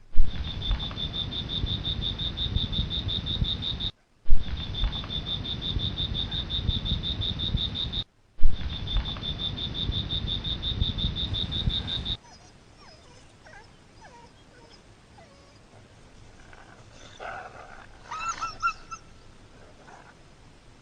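Animal sounds: a fast, high pulsing trill over noise, heard in three stretches of about four seconds each split by brief gaps. Then it turns much quieter, with a few short yelping calls near the end.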